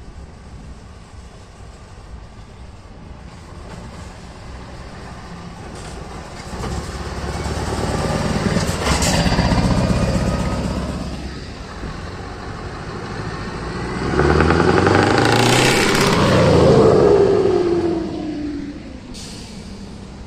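Open-piped heavy truck diesel engine, loud as it drives past close by. It then accelerates hard away, its exhaust note rising and then falling as it pulls off.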